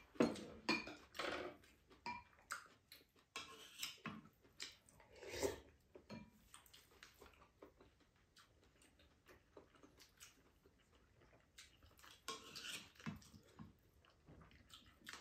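Chopsticks and spoons clicking and scraping against ceramic bowls and a cooking pot during a meal: irregular light taps and clinks, denser in the first half and again near the end.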